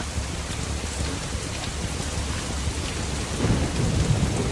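Heavy rain pouring down, with a low rumble of thunder swelling about three seconds in.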